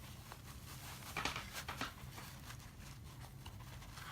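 Faint rustling and light clicks of packing material being handled, with a short cluster of louder crackles a little over a second in, over a low steady room hum.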